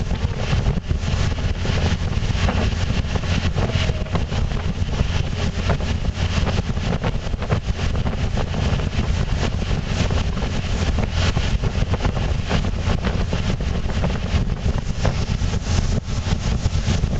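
Yamaha 150 outboard motor running with the boat under way at steady speed, mixed with the rush of the churning wake and wind buffeting the microphone.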